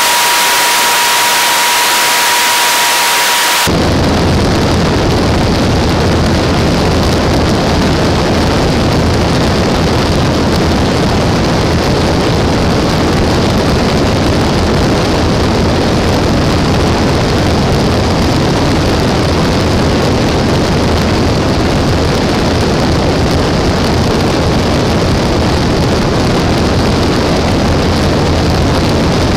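A steady high tone over hiss cuts off abruptly about four seconds in. It gives way to a loud, even rush of propeller, engine and wind noise from a Mooney light aircraft, picked up by a camera mounted outside on the tail tiedown.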